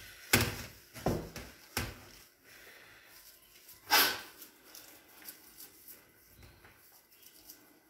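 A few sharp knocks and thumps, the loudest about four seconds in, as cooked rice is scooped and pressed by hand against a stainless steel tray while an arancina is shaped.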